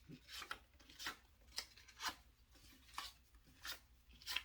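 Paper word cards being handled: a string of short, faint rustles and scrapes, about seven in a few seconds.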